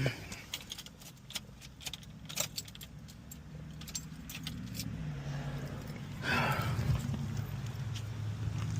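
Keys jangling and clicking at the ignition, then the Box Chevy's small-block V8 running with a steady low hum, briefly louder about six seconds in. This comes after a wire-brushed electrical connection gave it power.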